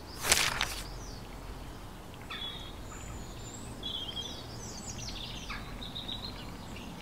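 A short, loud rustle as a sheet of paper is snatched up from the leaf-covered forest floor, then songbirds chirping in short calls from about two seconds in.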